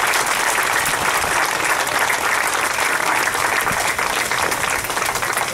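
Audience applauding, a steady patter of many hands clapping that drops off at the very end.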